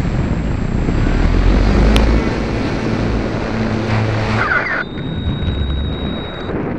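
Steady rushing noise and low hum from an RC model Spitfire, picked up by a camera mounted on the airframe. A thin, high steady whine joins about five seconds in.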